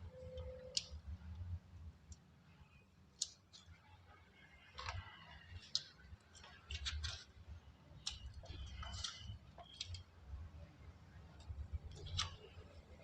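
Soft black gym chalk crunching and crumbling in irregular crackles and sharp clicks, busiest in the middle of the stretch.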